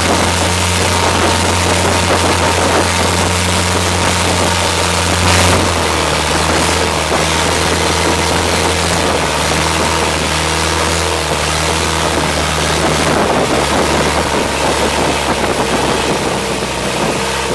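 Motorboat engine running steadily at speed with a loud low drone, over the rush of water and wind along the hull.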